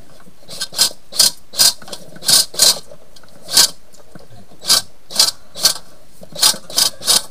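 Flexible-shaft drain cleaner spinning its cable inside a sink drain pipe, run in about a dozen short, uneven bursts with a harsh mechanical whirr each time.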